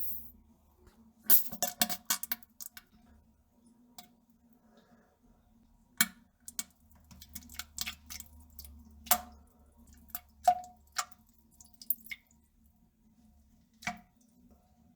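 A series of irregular sharp clicks and clinks, some with a brief ringing tone, over a faint steady low hum.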